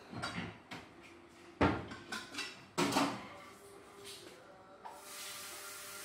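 Kitchen clatter: a few knocks and bumps of pots and cupboards, the loudest about one and a half and three seconds in. About five seconds in, a tap starts running with a steady hiss, water for the pot.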